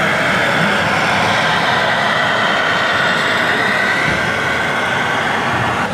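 Electronic sound module in a scale RC semi truck playing a big-rig diesel engine running steadily, its pitch shifting slightly as the truck drives.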